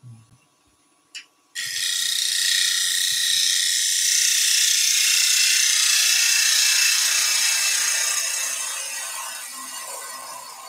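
Gouge cutting a spinning wooden blank on a woodturning lathe: a steady, high hiss of shavings being peeled off that starts about a second and a half in and fades towards the end. A short click comes just before the cut begins.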